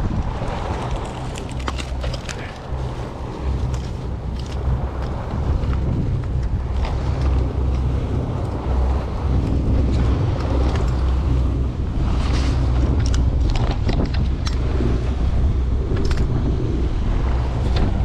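Wind rumbling and buffeting on the microphone, with a few light clicks scattered through.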